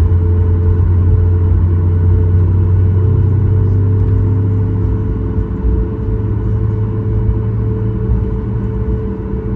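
Cabin sound of a Boeing 737 MAX 8's CFM LEAP-1B engines running: a loud, steady low rumble with a constant hum over it. The low drone shifts slightly higher about three seconds in.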